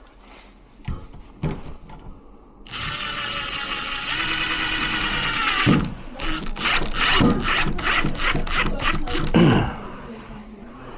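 Cordless power drill/driver: a couple of light clicks, then the motor running steadily for about three seconds, followed by a fast run of short trigger pulses that stops near the end.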